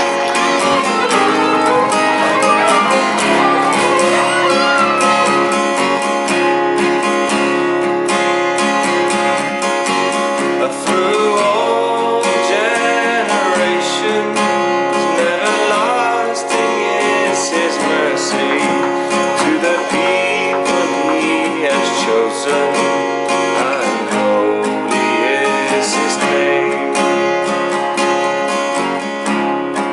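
Background music: acoustic guitar strumming under a wavering melody line, an instrumental stretch of a worship song.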